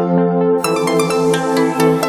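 Electronic ambient music: sustained synth pad chords under a quick run of plucked notes. The high notes drop out briefly and come back about half a second in.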